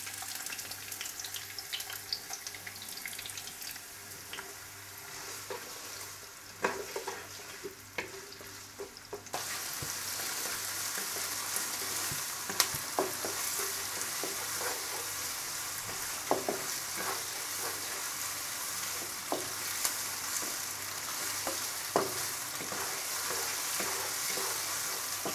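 Chopped onion sizzling in hot oil in a non-stick wok, stirred with a wooden spatula that scrapes and taps against the pan. The sizzle gets suddenly louder about nine seconds in.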